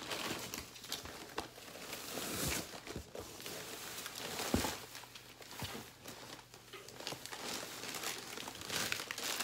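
Plastic bag and candy wrappers crinkling and rustling as hands rummage through a cardboard box, with a couple of soft knocks.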